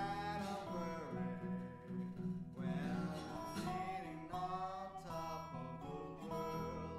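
Acoustic bluegrass-blues music with guitar playing to the fore, its notes bending and sliding in pitch.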